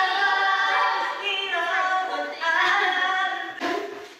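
Young women's voices singing along together, several voices at once, in held, sliding notes; the singing breaks off about three and a half seconds in.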